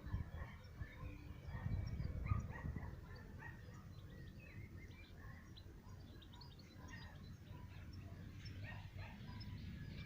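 Several small birds chirping and singing outdoors, many short calls overlapping, over a low rumble that swells briefly about two seconds in.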